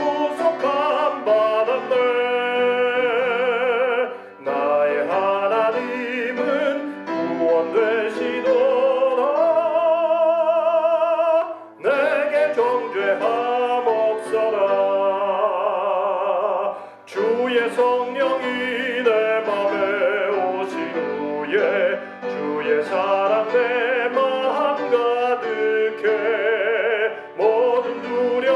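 A hymn sung with piano accompaniment. The voice carries a marked vibrato, and there are short pauses between the sung lines.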